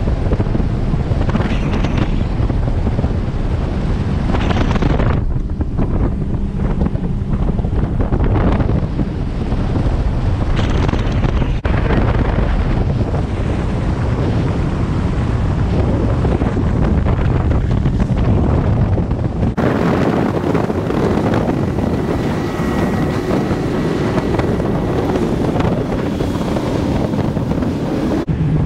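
Heavy wind buffeting the microphone aboard a boat on open water, with the rush of water and the boat's running noise underneath. The sound changes abruptly about two-thirds of the way through, becoming less rumbly and more hissy.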